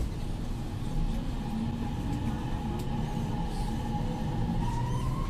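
Dalian Metro Line 1 train heard from inside the car: a steady low rumble with a faint motor whine, which rises in pitch near the end as the train picks up speed.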